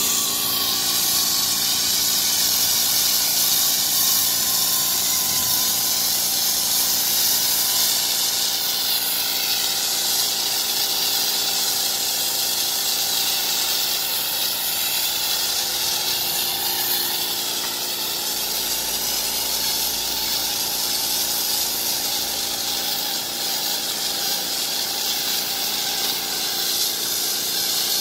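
Pneumatic polyurea cartridge spray gun spraying coating, a steady high hiss of compressed air that runs on without a break, with a faint steady hum beneath it.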